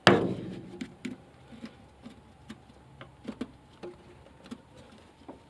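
A knock at the start, then light scattered clicks and taps: the clutch hydraulic line's fitting being wiggled against the port of a new clutch master cylinder to start its thread by hand.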